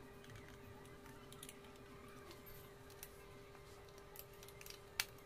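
Light, scattered clicks and taps of a hand tool and metal parts being handled at the bolts of a motorcycle's rear frame, with one sharper click about five seconds in, over a faint steady hum.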